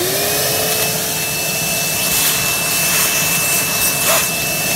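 Wet/dry shop vacuum switched on: its motor winds up to a steady whine within a split second and then runs with a loud rushing hiss of air through the hose, which is sucking up wood chips and sawdust.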